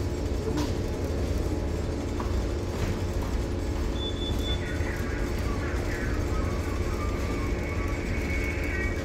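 A tanker's engine and machinery running steadily underway: a constant low rumble with a steady hum over it. A short high beep sounds about four seconds in.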